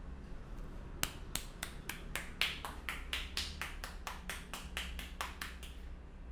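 A rapid run of about twenty sharp slapping claps, four or five a second, for nearly five seconds: a barber's hands rhythmically tapping and clapping on the head in a percussive Indian head massage.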